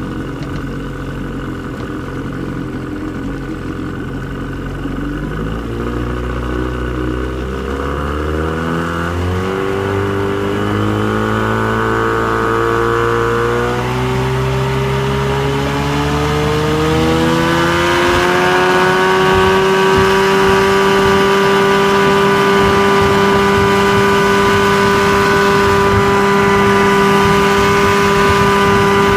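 1974 Mercury 200, a 20 hp two-cylinder two-stroke outboard motor, accelerating under throttle. Its pitch climbs in stages through the first seventeen seconds or so, then it holds steady at high speed as the boat runs flat out.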